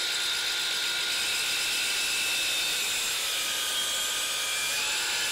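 DeWalt FlexVolt 12-inch brushless sliding miter saw running at full speed, its motor and blade giving a steady whine.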